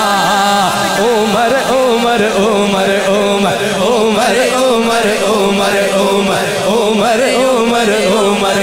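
Male voice singing a manqabat, an Urdu devotional praise song, in long, wavering ornamented phrases over a steady low drone.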